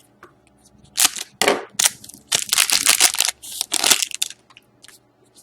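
Trading card pack and cards being handled: a few seconds of dry crinkling and rustling, like a pack wrapper being crumpled and cards sliding against each other.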